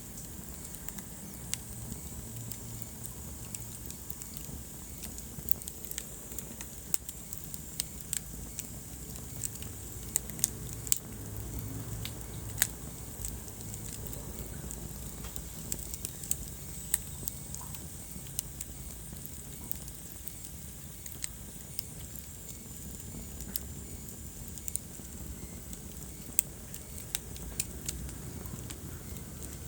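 Wood fire crackling in a fireplace: irregular sharp pops and snaps over a low, steady rumble and hiss of the flames.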